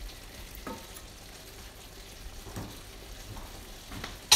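Thick curry sauce simmering in a shallow pan on a gas hob, a faint steady bubbling sizzle, with a few soft knocks and one sharp ringing clink near the end.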